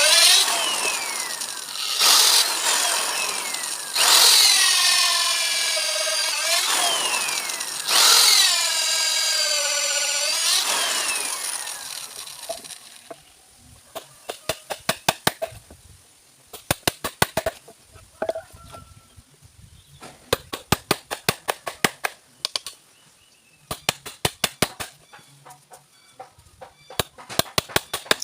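An electric power tool working into wood in repeated passes, its pitch falling each time as it takes the load. About halfway through it stops and gives way to clusters of rapid sharp taps, about five a second, as a chisel is struck to clean out a mortise in a timber door frame.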